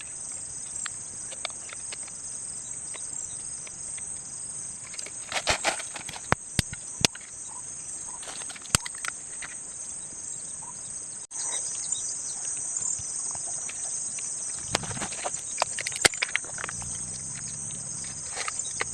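A steady, high-pitched chorus of insects, with scattered sharp clicks and knocks over it.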